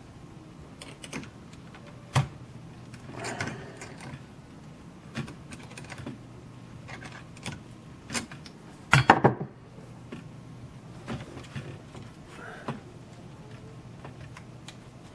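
Small metal hand tools clicking and scraping on a camera body: a small screwdriver working a tight inside screw, with pliers clamped on its shaft to turn it. The clicks are scattered and irregular, with a quick cluster of louder clicks about nine seconds in, over a low steady hum.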